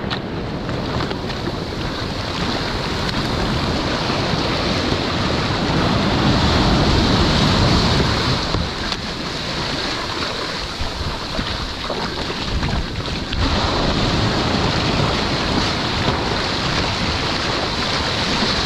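Surf washing in around a fishing kayak in the shallows: whitewater rushing and churning, with wind buffeting the microphone. The wash builds to its loudest partway through, falls away, then another surge comes in about two-thirds of the way through.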